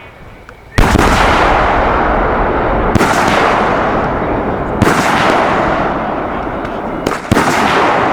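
Large aerial firework ball shells bursting: four loud booms about two seconds apart, each trailing off in a long rolling echo.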